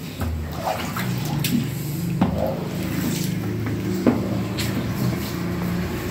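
Floor squeegee pushing water across a wet tiled floor, with several sharp knocks as it hits the tiles, over a steady low hum.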